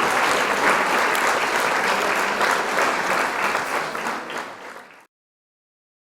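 Applause from a large crowd, steady and then fading out about four to five seconds in, cutting to silence.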